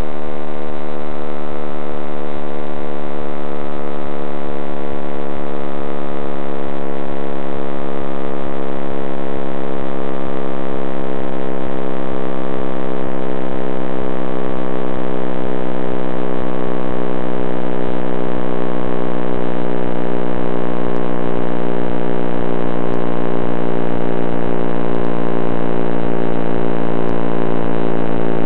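Dense electronic drone, a sonification of the cosmic microwave background: many sustained tones held together, slowly sliding lower in pitch, over a fast low pulsing rumble.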